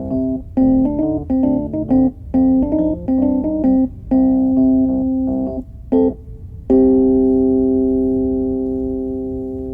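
Background music: piano or electric-piano chords in a steady rhythm, ending on a long held chord that slowly fades.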